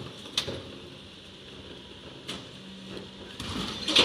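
Refuse lorry running with a steady hum, and plastic wheelie bins knocking and clattering, with a loud cluster of clanks near the end as a bin goes onto the lorry's rear lift.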